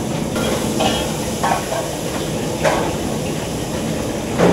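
Cashews and corn sizzling as they stir-fry in a large wok, a steady hiss, with a metal ladle scraping against the wok a few times.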